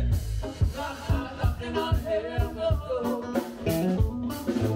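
A band playing: a singer over guitar and a steady drum beat of about two strokes a second.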